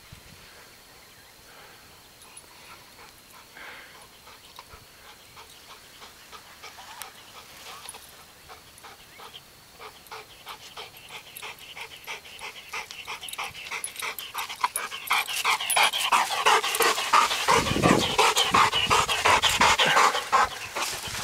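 Chocolate Labrador retriever panting in quick, even strokes, about four a second. The panting is faint at first and grows much louder as the dog comes close, loudest over the last few seconds.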